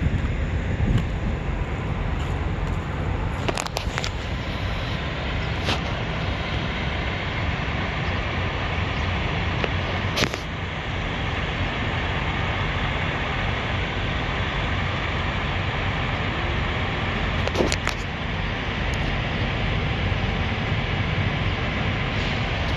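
Steady low rumble of semi-trucks, with a few brief sharp clicks.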